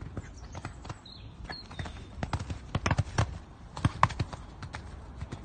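Hoofbeats of a Poney Français de Selle stallion cantering, a run of irregular strikes that grow loudest about two to four seconds in.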